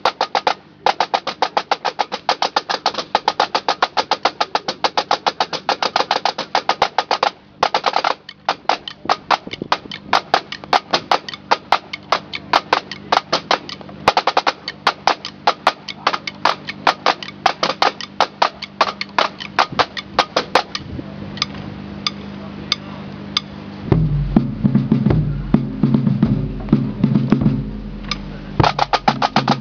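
Pipe band snare drums playing fast rudiment patterns and rolls with a bass drum beating under them. After about 20 s the drumming thins to scattered strokes and a loud low rumbling takes over for a few seconds, then the full drumming starts again near the end.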